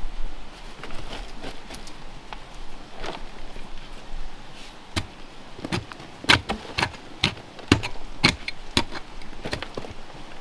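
A long-handled digging tool striking a packed earth bank, knocking clods of soil loose. There are a few lighter strikes at first, then from about five seconds in a steady run of about two blows a second.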